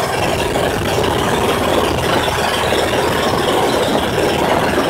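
Engine of a motorised outrigger boat (bangka) running steadily under way, over a steady rush of wind and water.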